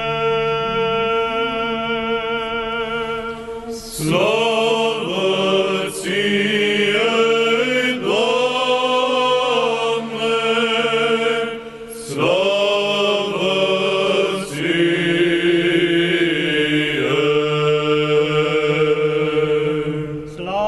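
Male church choir singing an unaccompanied Orthodox chant in parts. One chord is held for the first four seconds, then the voices move through sung phrases with short breaks between them.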